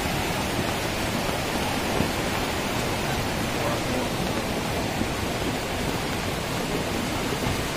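Muddy floodwater rushing in a fast torrent, a steady noise mixed with falling rain.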